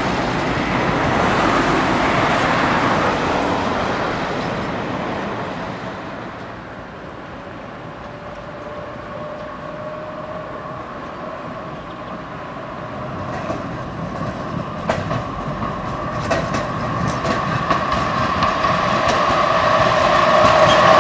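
Road traffic passing and fading, then a tram approaching on its rails and growing louder, with a steady whine and its wheels clicking over the rail joints as it nears.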